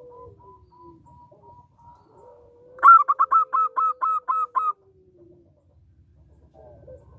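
Zebra dove (perkutut) singing. A loud, quick string of about ten short cooing notes lasts about two seconds, over a fainter, drawn-out lower coo.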